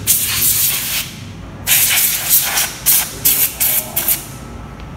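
Can of compressed air duster blowing dust out of a grimy computer's insides. One long hiss lasting about a second, then a string of about seven short quick blasts.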